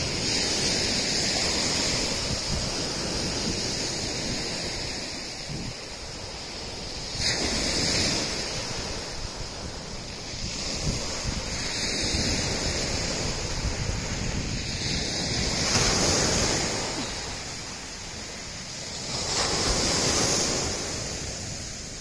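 Sea waves breaking and washing up a pebble beach, the surf swelling and fading every four seconds or so. Wind buffets the microphone underneath.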